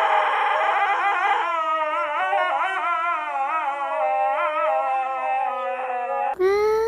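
Dog howling in long drawn-out notes that waver up and down in pitch. Near the end it cuts off abruptly and a different, higher call begins.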